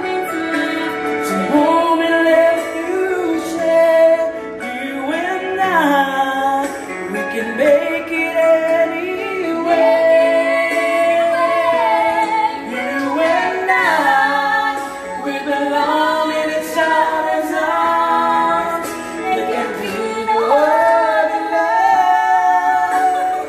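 A woman and a man singing a slow love-ballad duet, the woman's voice the stronger.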